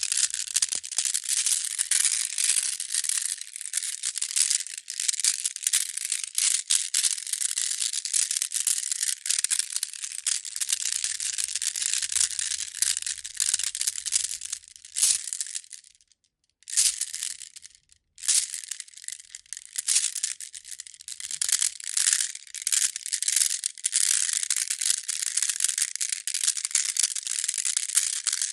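Pietersite stones rubbing and clicking against each other in a dense, continuous crackling clatter, with a pause of about two seconds a little past the middle.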